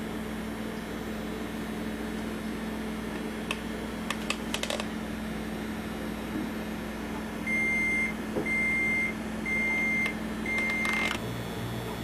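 Microwave oven running with a steady hum, a few clicks about four seconds in, then four long high beeps in a row as its countdown runs out, and a clatter of clicks right after the last beep.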